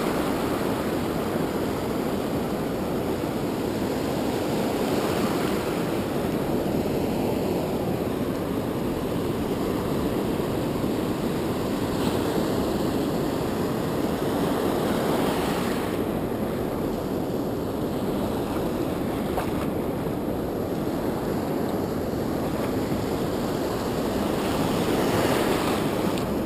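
Ocean surf breaking and washing up the beach: a steady, even rush of water with no distinct events.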